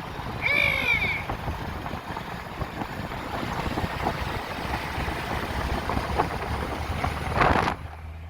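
A sheep bleats once, about half a second in, over the steady running of the road train's engine. Near the end comes a short loud rushing burst.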